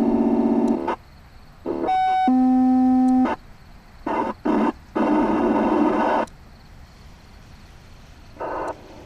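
Emergency scanner radio keying up without speech: a buzzy tone cuts off under a second in, then a short beep and a steady tone of about a second. Several bursts of static follow, with one more short burst near the end.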